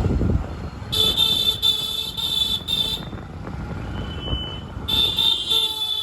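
Vehicle horn honking in jammed road traffic: four quick honks in a row about a second in, then a long honk from about five seconds, over the low rumble of engines.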